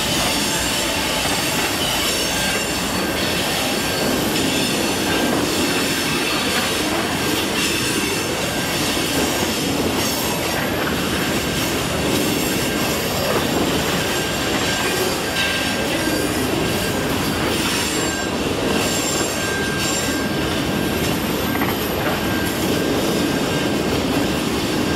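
Passenger cars of a CN business train rolling past, steel wheels on the rails making a steady rumble with thin high wheel squeal that comes and goes.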